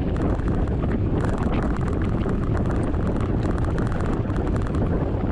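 Wind buffeting the microphone: a steady low rumble with faint light rattling through it.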